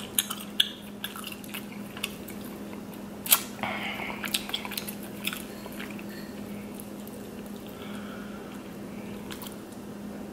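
Fingers picking meat out of a cracked king crab leg shell, and chewing: scattered small clicks and wet squishing sounds over a steady low hum.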